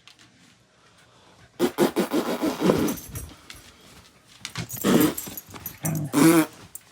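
Agitated beagle vocalizing in loud pitched outbursts: a long run starting about a second and a half in, then two shorter bursts near the end.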